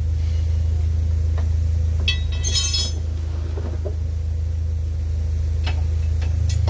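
Metal tools clinking against metal car parts in a short cluster about two to three seconds in, with a few lighter clicks later, over a steady low rumble.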